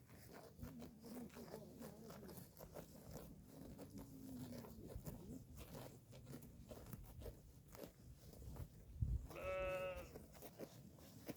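A sheep bleats once, a short wavering call near the end, just after a low thump. Before it there are faint clicks and low rustling.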